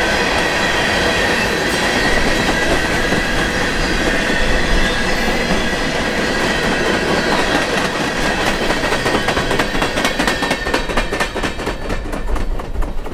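Ballast cars of a freight train rolling past on steel rails: steady wheel-on-rail noise with a thin high wheel squeal. Toward the end comes a quick run of clicks as the last cars' wheels cross the rail joints, then the sound thins out as the train moves away.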